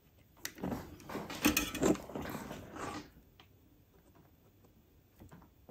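Rustling and light clicks of hands handling fine wires, a capacitor bundle and a soldering iron, a burst of small handling noises over a couple of seconds that then goes quiet.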